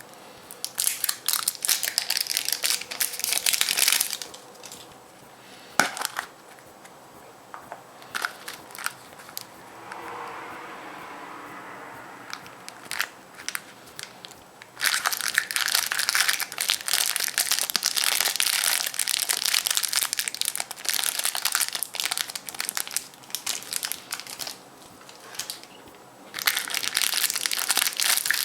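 Foil wrapper of a Kinder Surprise chocolate egg being peeled off and crumpled, crinkling in three long spells with a few single crackles between.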